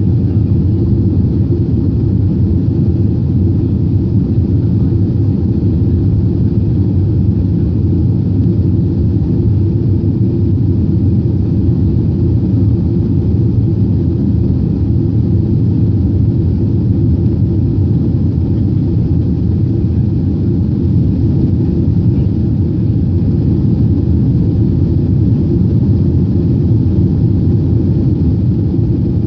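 Jet airliner cabin noise during the climb after takeoff: engines and airflow heard from inside as a loud, steady low rumble.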